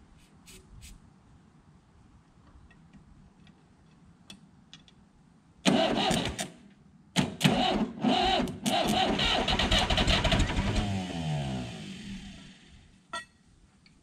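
Perkins diesel engine of an old Massey Ferguson backhoe being cranked slowly by a shorted, overheating starter: a couple of short cranking bursts a little past the middle, then a longer crank of a few seconds that winds down with a falling pitch. The engine wants to fire but does not start, because the failing starter, drawing huge current, cannot spin it fast enough.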